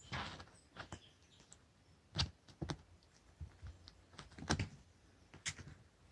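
Irregular soft thumps and clicks as a kitten pounces on, bats and tussles with a wand toy on carpet, the sharpest knocks about two seconds in and again past four seconds.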